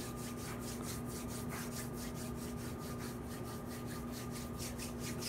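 Hands rubbing together palm to palm in a quick, even series of strokes, over a steady low hum.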